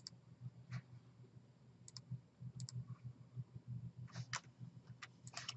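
Computer mouse clicks, single and in quick pairs, scattered through and bunched near the end, made while trimming lines in CAD software. A faint low hum runs underneath.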